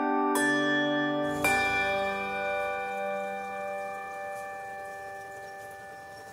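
Background music in bell tones: chime-like chords struck about a second apart, the last one about a second and a half in, then left to ring and fade out slowly.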